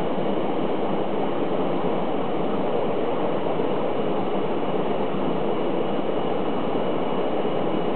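Steady, unbroken rushing hum of aquarium filtration and aeration equipment running, with a faint high whine held throughout.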